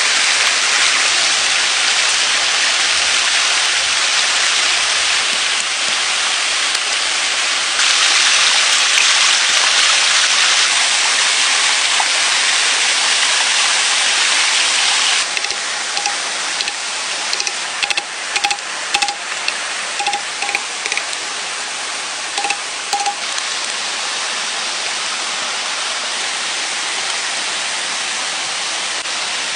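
Steady rushing of a shallow rocky stream. Midway through come a series of short high pips and light clicks.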